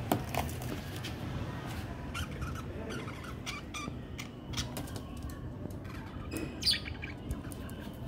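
Parakeets moving in a cage: wing flutters and scattered light clicks, a few short chirps, and one louder sweeping call near the end.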